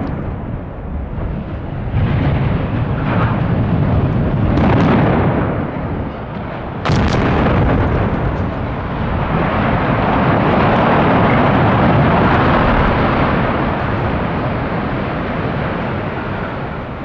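Explosive demolition charges going off in a series: heavy booms with sharp cracks about 2, 5 and 7 seconds in, running into a long, dense rumble as the power plant's SCR structure and chimney are felled, fading slowly near the end.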